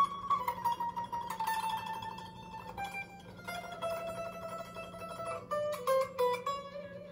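Guitar played one plucked note at a time in a run that starts near its highest note and steps down in pitch.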